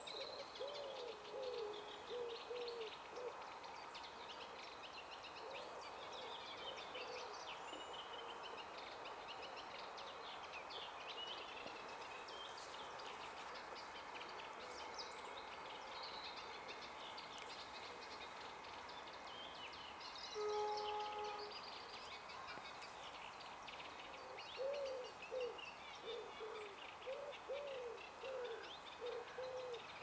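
Birdsong chorus: several small birds singing high chirps and trills throughout, over runs of low, rapidly repeated hooting notes at the start and again in the last few seconds. About two-thirds through, a single short pitched call or tone, about a second long, stands out as the loudest sound.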